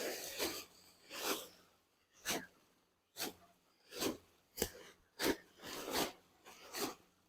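Handfuls of broiler chicken feed scooped by hand from a feed sack and dropped into another sack: a series of short rustling swishes, about one a second.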